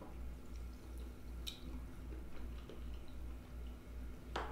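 Small drips and soft ticks as a fork dips a melon cube into a glass of fizzing Sprite and lifts it out. A sharper clink of the metal fork comes near the end.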